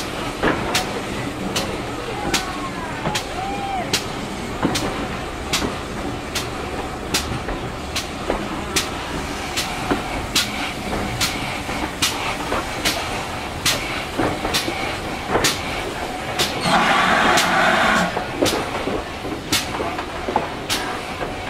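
GWR 4200 Class 2-8-0T steam tank engine running slowly. A sharp click repeats about one and a half times a second, and a loud hiss lasts about a second near the end.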